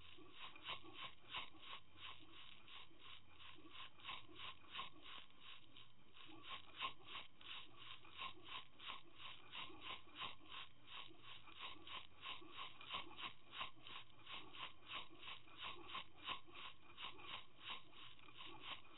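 Metal snap swivels and hardware on a towed trolling line clicking steadily underwater, about three to four clicks a second.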